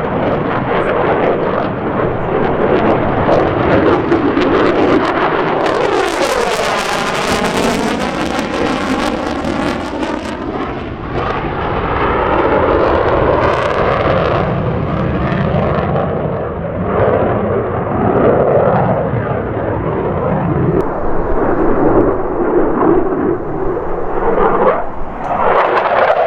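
F-16 fighter jet's single turbofan engine, loud and continuous as the jet flies its display. About six seconds in it makes a close pass, the sound turning bright and hissing with a sweeping, phasing whoosh, then rumbling on as it pulls away.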